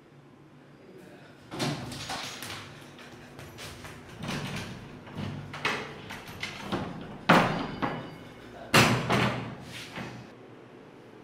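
A door being banged and knocked: a run of irregular sharp hits, the two loudest about seven and nine seconds in.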